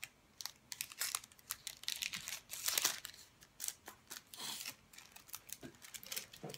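Plastic-wrapped stationery and paper being handled: crinkling and rustling in a string of short scratchy bursts, with a couple of louder rustles in the middle.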